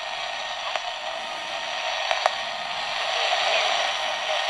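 Shortwave radio static hissing from the small speaker of a Kosmos kit receiver tuned through a crystal-controlled converter on the 49 m band, with a few sharp clicks. The hiss has no bass and grows slightly louder near the end.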